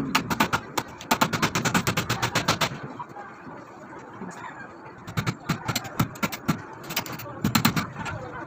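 Claw hammer striking a wooden frame in quick runs of blows: a fast burst of about two and a half seconds, a pause, then two shorter bursts later on.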